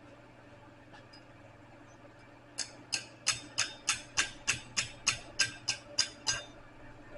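About a dozen light, evenly spaced hammer taps on metal, roughly three a second, each with a short ring, starting a few seconds in and stopping suddenly: a blacksmith's hammer tapping on iron at the anvil.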